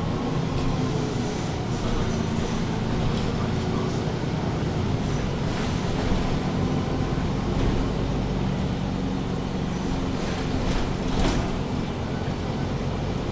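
MAN Lion's City G articulated bus's diesel engine idling steadily, heard from inside the passenger cabin while the bus stands still, with two brief hisses about 6 and 11 seconds in.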